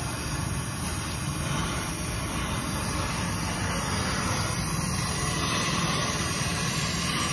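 Gas welding torch hissing steadily while the motorcycle's side stand is welded.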